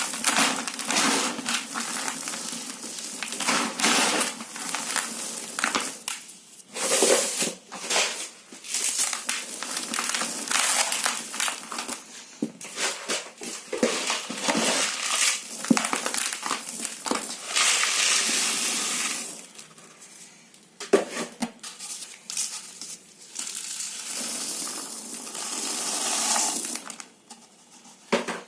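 Hands crumbling a dry, gritty material: dense crunching and crackling made of many small grainy cracks. It eases off briefly about two-thirds of the way through and again near the end.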